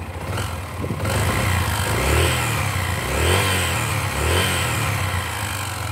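Single-cylinder 125 cc motorcycle engine revved in about three blips, with a little whistling hiss from the cam chain that rises and falls with each rev. The chain is worn from running out of tension and is due for replacement, though the engine runs normally.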